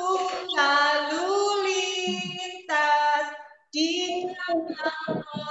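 A woman singing a children's song in long held notes, breaking off briefly twice.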